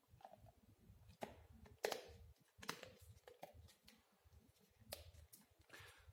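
Near silence with a few faint, sharp clicks and light taps, about five, spread out: small plastic paint-mixing containers and lids being handled while paint and catalyst are mixed.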